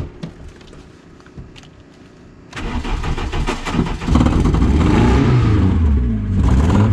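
Volkswagen Polo engine started with the key. The starter cranks for over a second about two and a half seconds in, the engine catches, and it is revved up and down.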